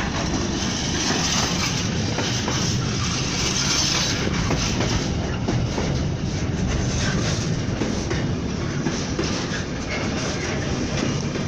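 Container freight train wagons rolling past, a steady rumble with the wheels clacking irregularly over the rail joints.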